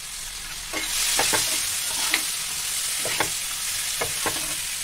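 Chopped tomatoes sizzling in hot oil in a frying pan while a steel spatula stirs them, scraping and tapping against the pan several times. The sizzle swells about a second in as the tomatoes are spread through the oil.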